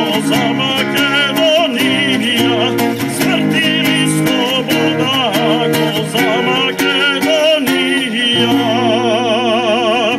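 A man sings a Macedonian patriotic song, with an acoustic guitar strummed under him. Near the end he holds one long note with a wide vibrato.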